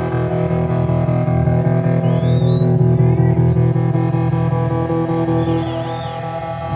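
Electric guitar through an amplifier, a chord held and left ringing as a steady drone with no drum hits, with short high warbling tones about two seconds and five seconds in.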